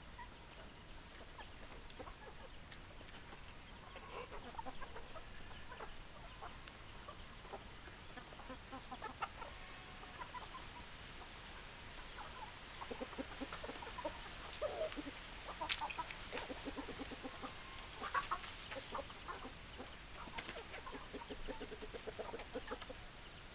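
Domestic hens clucking, with short repeated clucks and calls from several birds overlapping, busiest in the second half.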